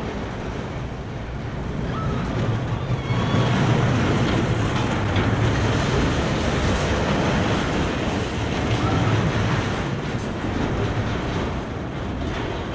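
E&F Miler Hi-Miler family roller coaster train rumbling along its steel track as it passes close overhead, growing louder a few seconds in and fading toward the end.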